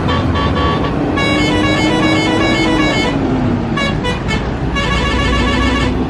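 Large diesel fuel tanker truck running on the road with a low engine rumble, while a multi-tone horn sounds in several short bursts.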